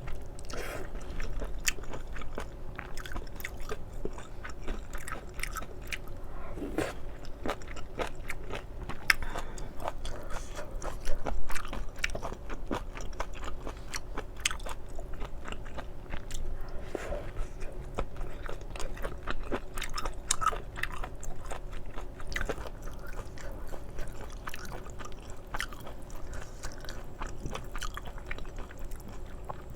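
Close-miked chewing and biting of spicy stir-fried octopus with thin wheat noodles: a dense, continuous run of small wet clicks and crunches, with a louder burst about eleven seconds in.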